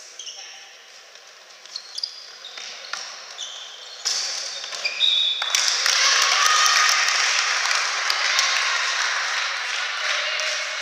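Shoe squeaks and a ball bouncing on a wooden sports-hall floor during a tchoukball rally. About four seconds in, loud, sustained applause and cheering from the spectators break out after the point.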